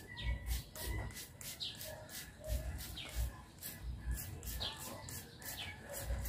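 Hand trigger sprayer squirting a baking soda and oil fungicide solution onto leaves in quick repeated pumps, about three short hissing sprays a second, each with a soft click of the trigger. Birds chirp in the background.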